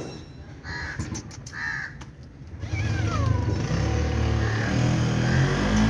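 A calico cat meowing in short, hoarse calls, twice in the first two seconds and once more with a falling pitch about three seconds in. A louder, steady low rumble comes in about three seconds in and keeps going under the meows.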